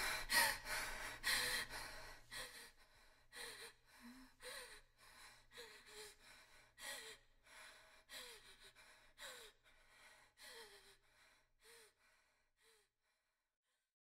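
A woman's quick gasping breaths, each with a short falling catch of voice. They grow steadily fainter until they stop about a second before the end.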